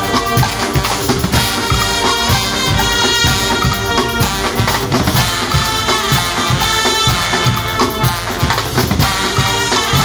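Guggenmusik brass band playing loudly: trumpets, sousaphones and baritone horns over a drum kit and hand cymbals with a steady driving beat.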